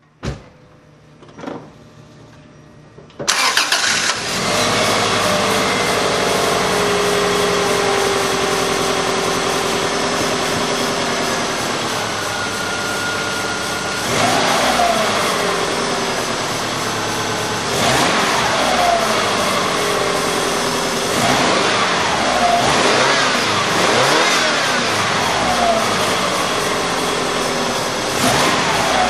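Subaru EJ22 2.2-litre naturally aspirated flat-four, fully stock, started warm: two clicks and a faint hum, then it cranks and catches about three seconds in and settles into a steady idle. In the second half it is briefly revved several times, the pitch rising and falling back to idle each time.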